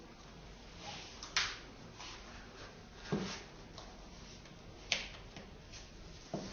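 Quiet room tone broken by about four short clicks and rustles from hands fastening the straps of high-heeled sandals, the sharpest about a second and a half in and again about five seconds in.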